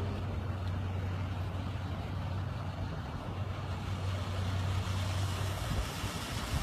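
A motor vehicle's engine running with a steady low hum under a constant wash of noise; the hum fades out near the end.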